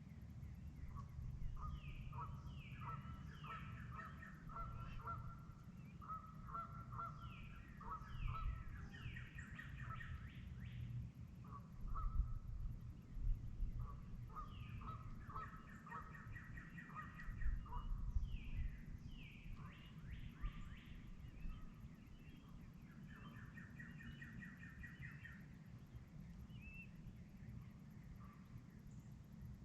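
Dawn chorus: several birds calling and singing over one another, with short down-slurred notes and quick trills repeated throughout. A low rumble runs underneath and swells a few times around the middle.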